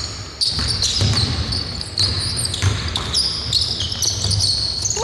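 Basketball game on a hardwood court: a ball bouncing with dull thuds, and sneakers squeaking in short, high chirps as players cut and stop.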